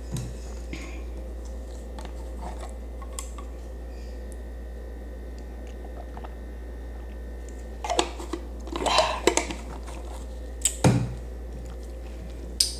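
Drinking from a bottle, with short mouth and swallowing noises, then a few sharp knocks and a dull thud as the bottle is handled and set down on the table. A low steady hum runs underneath.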